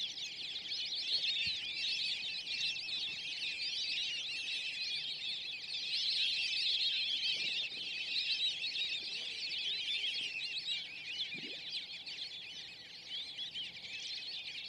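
A dense chorus of many birds calling at once: a constant, high-pitched chatter of countless overlapping short chirps.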